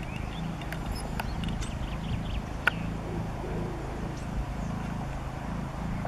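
A steady low hum that pulses regularly between two pitches, with small birds chirping faintly over it and one sharp click a little before the halfway point.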